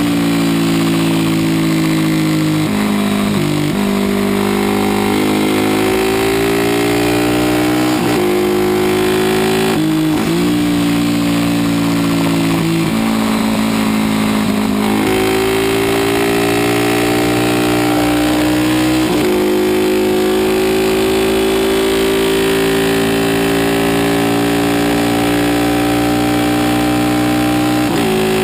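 Aermacchi Ala d'Oro 350's single-cylinder four-stroke racing engine at full throttle, heard from on board. Its pitch climbs through each gear and drops sharply at each shift, several shifts in the first two-thirds, then holds high on a long pull, over steady wind rush.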